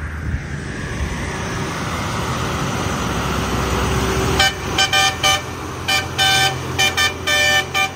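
Diesel engine of a loaded Foton Auman dump truck pulling uphill, growing louder as it comes closer. About four and a half seconds in, a vehicle horn starts sounding a rapid string of short toots, around ten blasts in a rhythmic pattern, louder than the engine.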